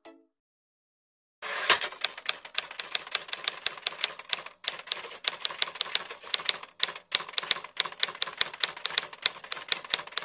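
Rapid typing-like key clicks, about five a second, starting about a second and a half in and running with a few brief pauses.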